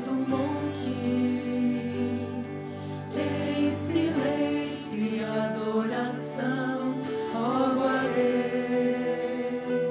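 A group of women's voices singing a devotional hymn together into microphones, accompanied by electric bass and acoustic guitars, held notes gliding gently from one to the next.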